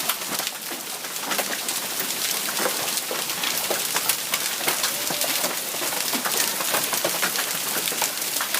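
Hail coming down hard, a dense steady patter of many sharp knocks of hailstones striking hard surfaces.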